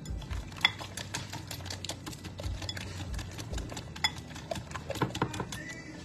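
Irregular small clicks and light taps, with a sharper knock about two-thirds of a second in and a cluster of louder clicks near the end.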